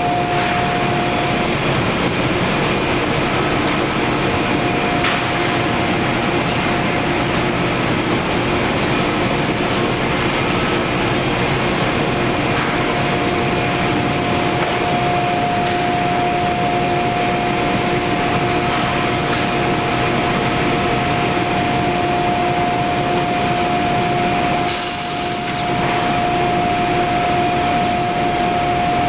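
Lobo CNC panel saw running, a loud steady machine noise with a constant tone over it. About 25 seconds in, a brief high whine falls in pitch.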